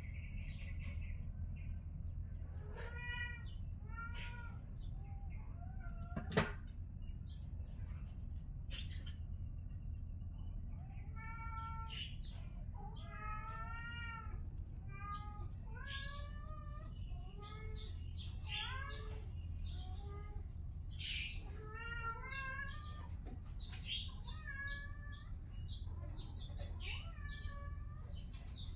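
Kittens meowing over and over in short, high, bending calls that come thick and fast in the second half, with one sharp knock about six seconds in.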